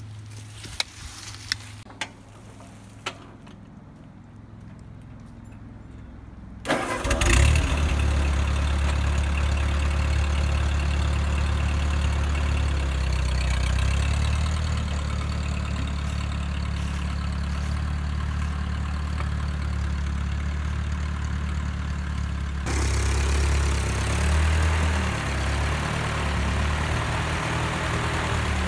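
A few sharp clicks, then about seven seconds in the Ford 8N tractor's four-cylinder flathead engine starts and runs steadily at idle. It runs a little louder and faster for a few seconds near the end.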